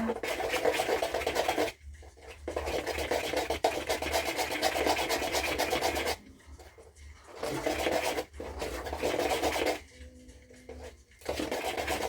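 Pancake batter being beaten by hand in a bowl without a whisk: fast scraping strokes of a utensil against the bowl, in four spells with short pauses between.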